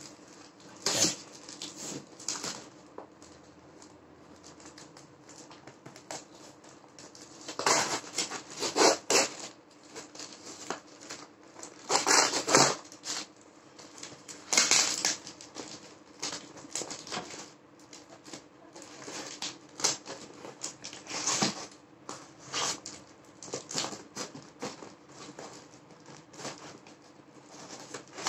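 Brown packing tape being peeled and ripped off a cardboard box by hand, in irregular ripping and crinkling bursts, the loudest about eight, twelve and fifteen seconds in. A faint steady hum lies underneath.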